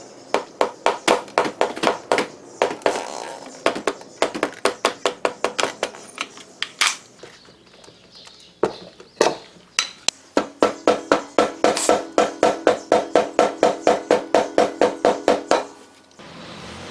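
Rubber mallet beating on a scooter's rear tyre to work the bead over the rim during a tyre change. The blows come in quick runs of about three or four a second, with a few scattered blows in the middle and a longer run in the second half.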